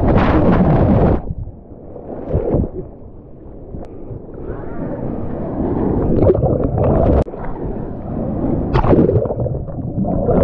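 Ocean wave water rushing and churning over an action camera in the surf, dipping in and out of the water. Loud at first, quieter for a few seconds, then building again in surges, with a sudden brief drop about seven seconds in.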